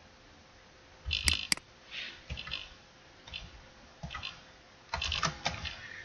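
Computer keyboard keys tapped in short irregular bursts as a search is typed, with two sharper clicks about a second in.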